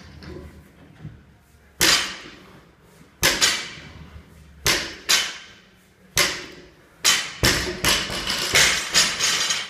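Loaded barbell with bumper plates knocking down onto a rubber lifting platform during deadlift reps, each touchdown a sharp knock with a ringing metal clank of the plates and bar. It strikes about every second and a half at first, then comes down in a quick run of knocks and rattles near the end as the bar is set down and left on the floor.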